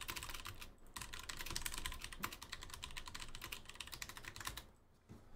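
Fast, continuous typing on a computer keyboard, a rapid run of key clicks that stops near the end.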